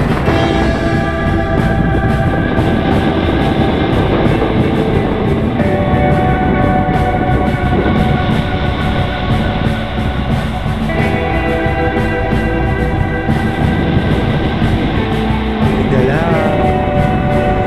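Background music: held chords that change every few seconds over a dense low bed, with a few sliding notes near the end.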